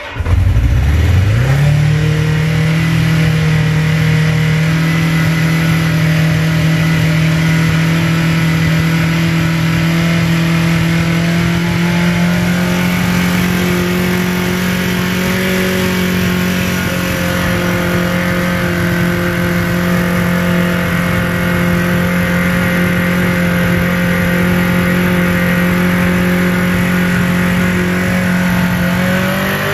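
1980 Kawasaki KZ750 LTD motorcycle engine starting and at once racing at a steady high idle of around 5,000 rpm with no choke, creeping slightly higher, then shut off at the end with the revs falling away. The too-high idle is a fault that follows an engine and carburettor rebuild.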